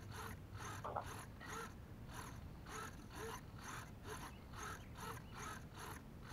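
Small RC servos sweeping their arms back and forth, a faint whirring buzz repeating about two to three times a second, as the receivers respond to transmitter commands during a range test.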